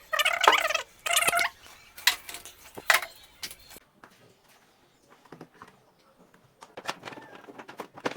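Short, repeated bird calls, loud and sharp, until an abrupt break about four seconds in. After that come a few scattered light clicks and taps.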